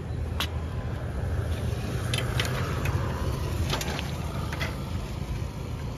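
A bicycle front wheel being worked out of its fork: a few sharp metal clicks over a steady low outdoor rumble.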